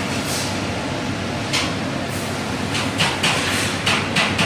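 Robotic welding cell at work: a steady hum under irregular short hissing crackles, which come more often in the second half.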